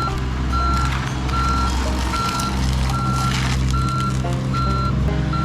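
A work machine's backup alarm beeping steadily, a bit more than one beep a second, over the steady running of its engine.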